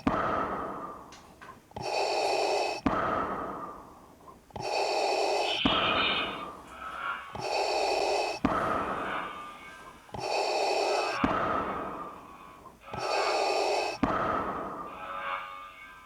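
Darth Vader's respirator breathing sound effect: mechanical in-and-out breaths repeating about every three seconds, each cycle set off by a short click.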